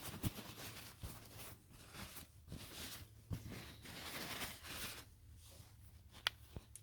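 Faint, scattered rustling, scraping and small clicks from hand-wiping with a cloth inside a furnace's blower compartment, with one sharper click near the end. A faint steady low hum runs underneath.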